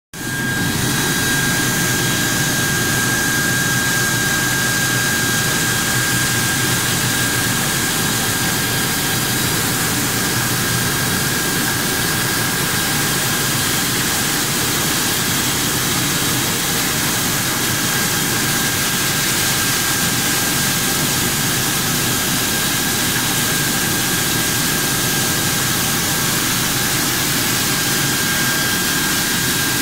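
PNMP-800 PVC pulverizer (disc grinder mill) running: a loud, steady rush of mechanical noise with a constant high whine held throughout.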